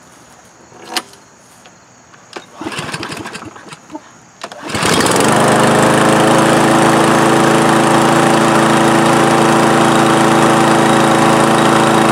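Briggs & Stratton lawn mower engine, just fitted with a new plastic carburetor, starting up about five seconds in after a click and some rattling, then running steadily at an even speed: the carburetor swap has it running well again.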